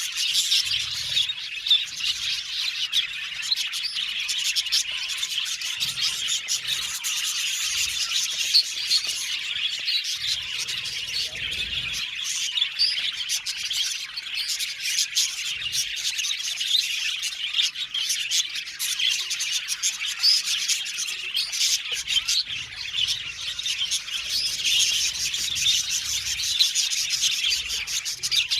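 A colony of budgerigars chirping and chattering together, many birds at once in a dense, continuous twitter.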